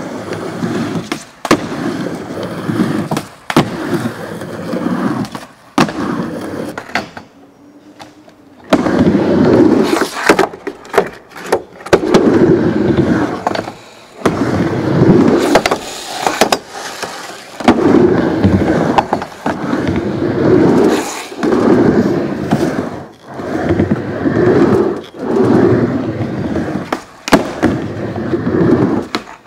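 Skateboard wheels rolling on a wooden ramp, the rumble swelling and fading about every one and a half seconds as the rider goes back and forth. Sharp clacks of the board and trucks striking the wood come in between, and there is a short quieter pause about seven seconds in.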